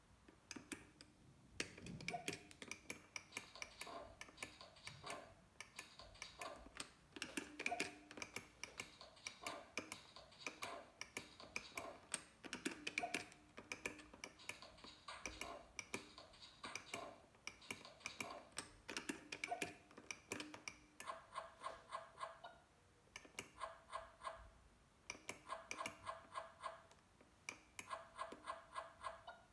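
Faint electronic sound effects from a casino gaming machine: rapid ticks and short beeps in quick runs. In the last third they turn into even bursts of quick beeps.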